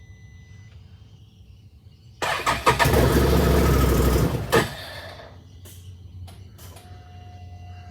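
Engine cranking on its starter for about two seconds without catching, then stopping; it is failing to start.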